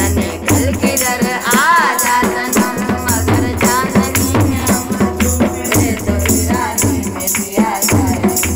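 A woman singing a dholak ke geet folk song. A hand-played dholak keeps the beat with deep bass strokes, and tambourine jingles rattle along with it.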